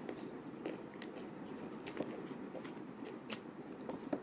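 A person eating: chewing and wet mouth sounds, with a few sharp clicks about once a second, as of chopsticks or a spoon tapping the dish.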